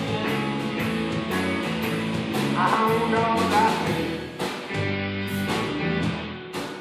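Live rock band playing, with electric guitars and a drum kit and cymbal strikes throughout.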